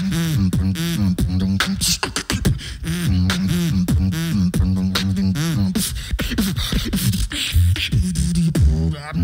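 Solo vocal beatboxing into a handheld microphone: a held, humming bass line cut by rapid kick, snare and click sounds in a steady rhythm.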